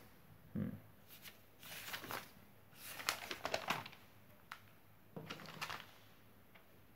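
Sheets of writing paper rustling and crinkling as the top handwritten page is turned over to the next, in a run of short rustles from about a second in until about four seconds, with softer handling of the pages near the end.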